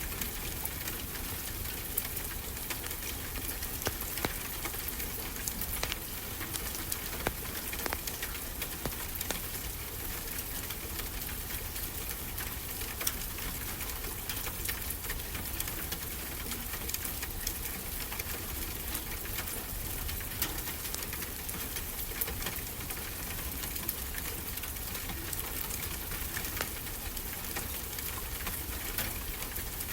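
Wood fire crackling, with frequent small sharp pops, over a steady hiss of ocean surf.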